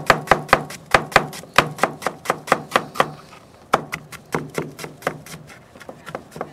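Chef's knife chopping a red onion on a plastic cutting board: quick, even strokes about five a second. The chopping pauses briefly about three seconds in, then resumes with softer strokes.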